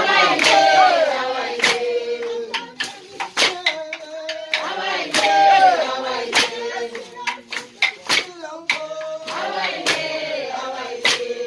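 A group of voices singing to hand clapping, with a sharp clap about every one and a half seconds.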